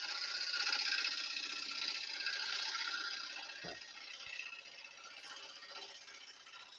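Turning tool cutting the underside of a spinning maple burl platter on a wood lathe, a steady scraping hiss of shavings coming off the wood. It is loudest for the first three seconds, then fades as the cut eases off.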